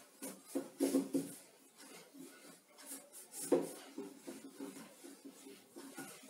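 A whiteboard duster rubbing across a whiteboard in irregular wiping strokes, erasing marker writing.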